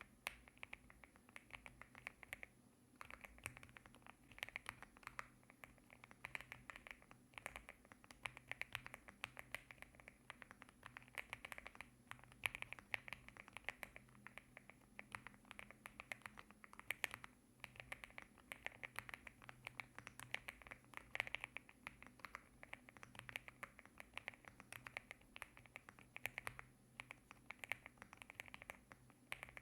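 Typing on a LEOBOG A75 mechanical keyboard with Rambo linear switches: a fast, continuous run of keystroke clicks with a few short pauses.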